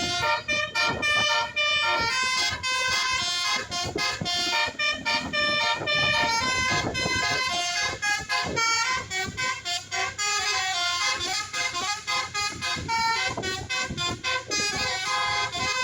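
Basuri multi-tone air horn on a bus playing a telolet tune: a fast run of changing horn notes, several tones sounding together, with brief gaps between phrases.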